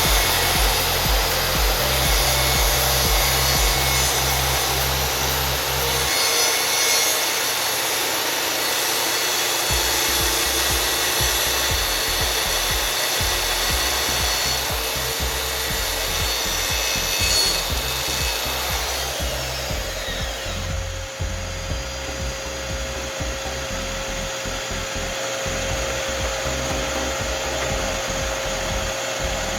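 A power tool working wood, a steady rasping noise, over background music with a bass line. About two-thirds of the way through, the sound changes to a steadier, duller note.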